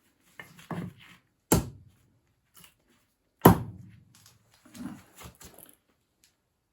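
Wooden knocks and scraping: two sharp knocks about two seconds apart, with softer scraping and rustling before and after them.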